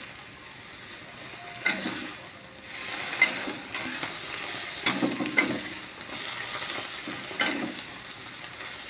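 Metal spatula scraping and clanking against a wok as sliced napa cabbage is stir-fried, with a low sizzle underneath. There are a handful of sharp clanks, one every second or two.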